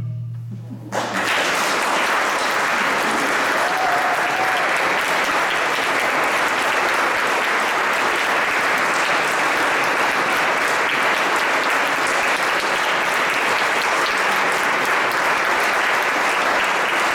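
Audience applauding steadily. The applause breaks out about a second in, as the last low marimba note dies away.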